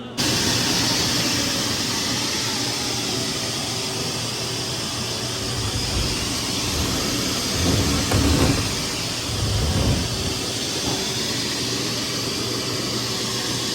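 Duct-cleaning equipment running: a steady, airy rush over a constant low hum, with a few heavier rumbles about six, eight and ten seconds in.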